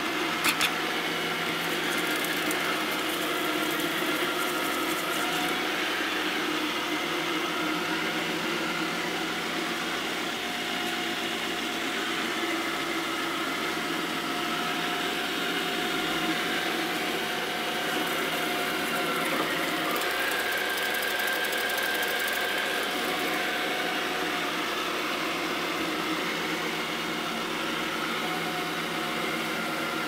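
iClebo Arte robot vacuum running in spot mode: a steady whir of its suction motor and brushes on a wooden floor, with a faint steady whine. A couple of sharp clicks come about half a second in.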